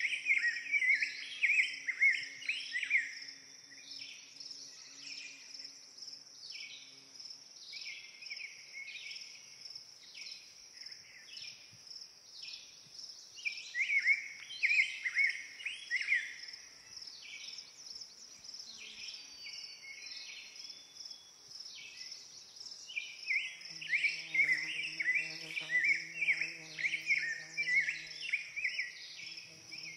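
Woodland birds singing in spells of quick chirps over a steady high-pitched insect buzz. A low steady hum comes in near the end.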